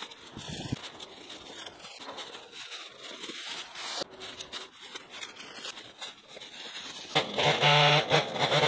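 Rustling and crunching of cut brush and footsteps on debris, then about seven seconds in the small petrol engine of a handheld power tool starts running loudly, its pitch wavering.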